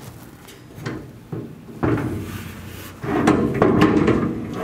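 Metal garage cabinet hardware being handled and fitted on its wall backboard: a sharp knock about two seconds in, then a longer run of clunks and rattles.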